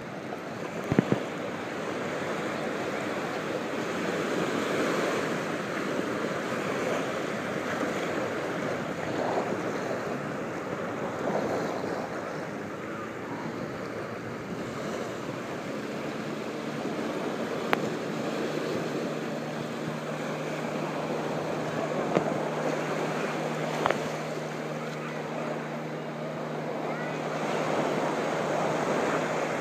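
Small waves breaking and washing up a sandy beach, a steady rush of surf that swells and ebbs every few seconds, with wind buffeting the microphone. There are a few brief knocks, and a faint low hum joins about halfway through.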